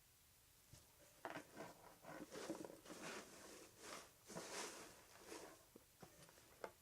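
Paper and packaging rustling and crinkling in uneven spurts, starting about a second in, as hands dig through confetti-filled packing in a small gift box.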